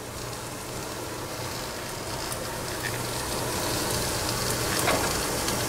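Onions, garlic and spices sizzling in hot oil in a non-stick frying pan, an even hiss that slowly grows louder, over the steady low hum of a kitchen vent fan.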